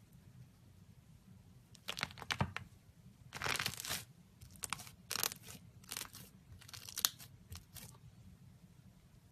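Slime being pressed, giving a series of short crackling, crunchy bursts that start about two seconds in and die away near the end.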